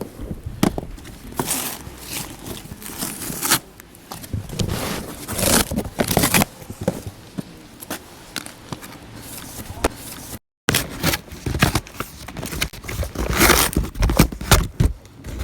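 Funke 50 mm 'Machine Gun' 435-shot fireworks cake firing rapid bursts of shots and crackling, with a sudden cut-out of all sound for a moment about ten seconds in.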